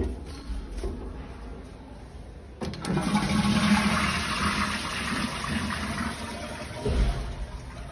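Toilet flushing from a wall-mounted flush button: a click about two and a half seconds in, then a rush of water into the bowl for about four seconds, with a thump near the end.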